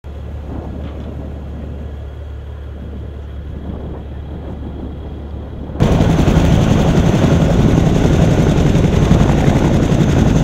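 A steady low hum, then about six seconds in an abrupt cut to a much louder Bell UH-1-type (Huey) two-bladed helicopter, its rotor chopping fast and its turbine running.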